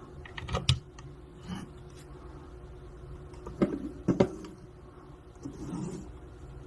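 A few sharp clicks and knocks, the loudest pair about three and a half and four seconds in, over a faint steady hum.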